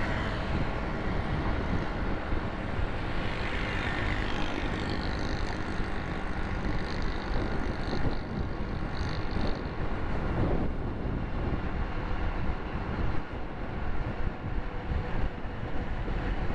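Riding a motorcycle on a city road: the engine and tyre noise run under heavy wind rushing over the microphone, with traffic around.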